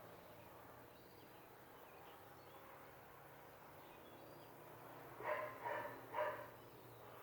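A dog barking three times in quick succession, faint, about five seconds in, over quiet room background.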